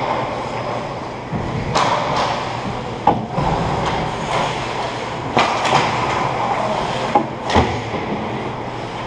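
Ice hockey play around the net: a steady scraping rumble of skates on the ice, with about five sharp clacks of sticks and puck.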